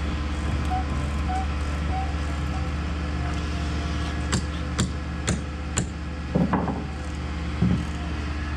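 Mobile crane's engine running steadily as it holds a prefabricated wall panel aloft. About halfway through come four sharp knocks about half a second apart, then a brief voice.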